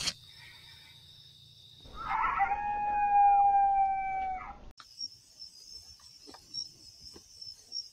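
A single long animal call, rough at its onset and then a held, slowly falling note lasting about two seconds, cut off abruptly. Insects trill steadily before and after it.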